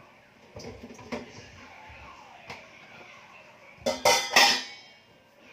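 Pots, pans and dishes being handled: a few light knocks and clinks, then a loud clatter with a brief metallic ringing about four seconds in.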